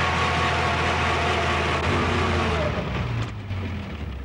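Truck engine running hard under load while its wheel spins in sand, with a hiss of churned sand and grit; the vehicle is bogged down. About three seconds in the engine eases off and the noise falls away.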